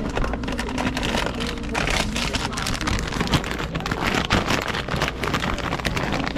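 Plastic potato-chip bag crinkling and crackling in a stream of quick, irregular clicks as it is handled in a vending machine's wire spiral, over a low steady rumble.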